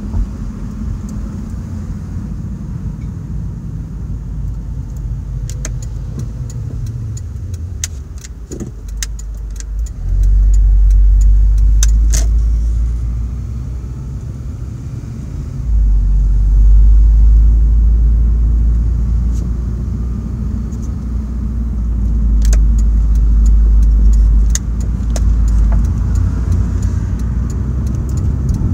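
Car engine and road noise heard from inside a moving car through a phone's microphone. A deep rumble swells sharply about ten seconds in and again for several seconds from about sixteen seconds in, with scattered small clicks and rattles over it.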